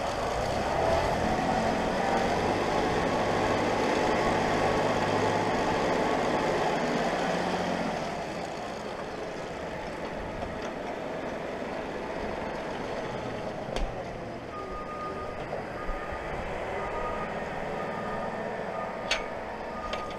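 Massey Ferguson 1523 compact diesel tractor running while scraping slurry, louder for the first eight seconds and then quieter. From about two-thirds of the way in, a reversing alarm beeps steadily, with a couple of sharp clicks.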